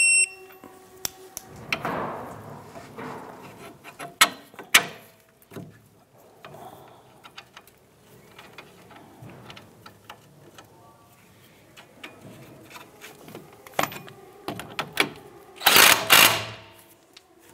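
Hand tools working on a car's front suspension: scattered metallic clicks and knocks, with a louder burst of noise near the end.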